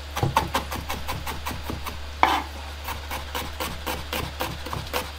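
Kitchen knife slicing onion on a bamboo cutting board: quick, even strokes, several a second, each blade stroke ending in a tap on the wood. One knock a little over two seconds in is louder than the rest.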